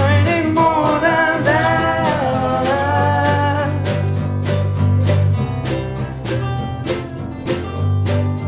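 Live acoustic band music: two acoustic guitars strumming over a steady percussive beat, with a wordless sung melody of long held notes that ends about four seconds in, leaving the guitars and beat.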